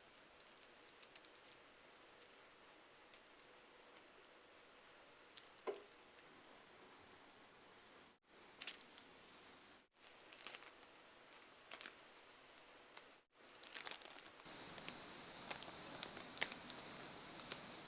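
Faint crinkling and tearing of plastic packaging with scattered small clicks, the sound cutting out briefly three times. A steadier hiss joins near the end.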